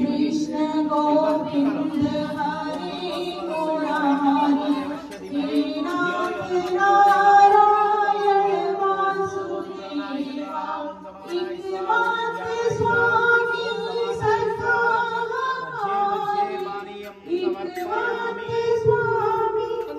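A group of voices, women's among them, singing a Hindu devotional song without instruments, in long held notes that step up and down in pitch.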